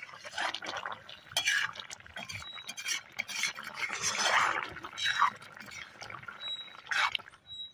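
A metal slotted spoon stirring thick mutton curry in a metal pan: irregular wet sloshes with scrapes and clinks of metal against the pan.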